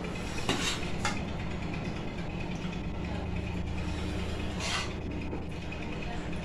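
Steel serving spoon scooping cooked rice from a bowl onto a plate, with a few short soft scrapes around half a second, one second and just before five seconds in, over a steady low background hum.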